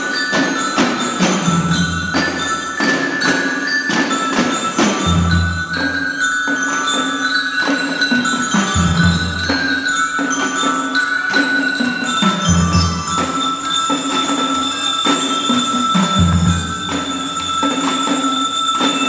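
A drum-and-lyre band playing: bell lyres (marching glockenspiels) ringing out a melody over a steady beat of drum strokes, with a deep low beat about every three and a half seconds.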